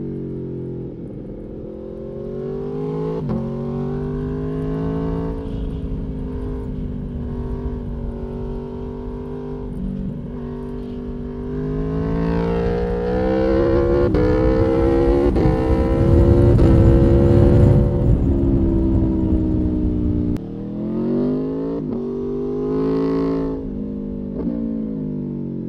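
Aprilia Tuono V4's V4 engine pulling hard under acceleration, its pitch climbing and dropping back at each gear change, with wind rushing over the microphone at speed. The wind noise cuts off suddenly about twenty seconds in, and the engine carries on with more rising and falling revs.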